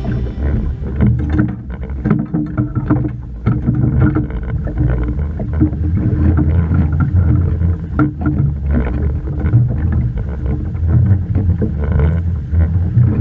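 A small fishing boat on the water: a loud, uneven low rumble with scattered knocks and clicks.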